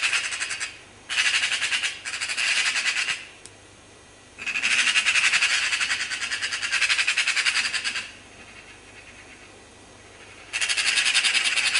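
Magpies chattering: harsh, rapid rattling calls in bursts of one to two seconds, with short gaps and a longer pause before the last burst, from a recorded electronic-caller sound file.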